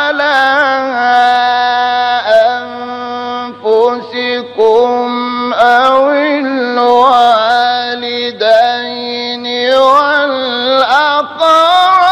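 Quran recitation in melodic tajweed style: one voice holds long, ornamented notes that bend and turn, pausing briefly a few times.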